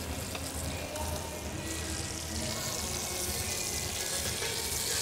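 Steady hiss of food cooking in pots on a gas range, with faint background music.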